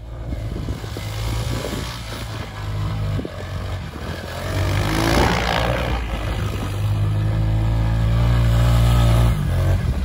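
Four-wheeler ATV engine running hard and revving as it spins donuts in snow, with a rush of noise about five seconds in. The engine eases off just before the end.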